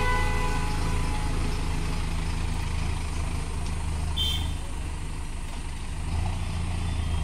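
Mahindra Arjun Novo 605 DI-i tractor's four-cylinder diesel engine running steadily as the tractor pulls away, growing a little fainter with distance. A brief high beep comes about four seconds in.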